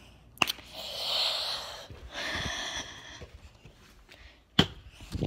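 Two long, noisy breaths close to the microphone, each lasting about a second, with a few sharp knocks, one near the start and two near the end.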